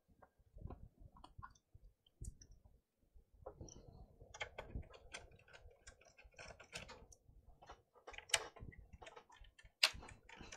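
Laptop's plastic case being handled on a bench, then a screwdriver working the bottom-cover screws: scattered small clicks and plastic knocks, sparse at first and more frequent after a few seconds, with a few sharper clicks near the end.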